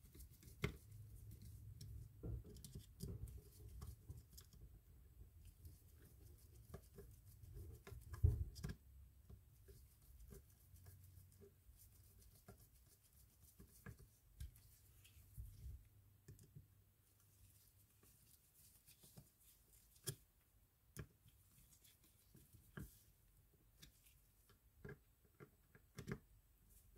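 Faint scattered clicks and light scraping of a screwdriver turning small screws into a Penn Spinfisher 550SS spinning reel's housing, with gloved hands handling the reel. A low hum runs under the first half.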